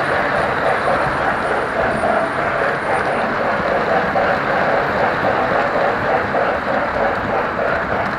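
Model train rolling steadily along its track: a continuous rumble of metal wheels on the rails and the locomotive's motor, heard close up from a car riding on the train.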